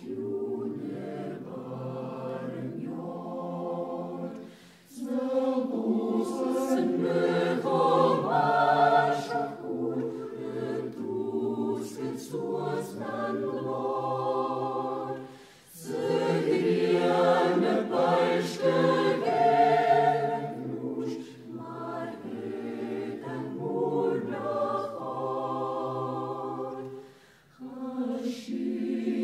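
Choral singing: a choir sings in long sustained phrases, breaking off briefly about five, fifteen and twenty-seven seconds in.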